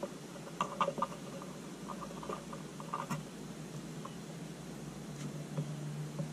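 Eastern gray squirrel moving about right at the camera: a patter of short clicks and scratches in two clusters, about half a second in and again around two to three seconds in.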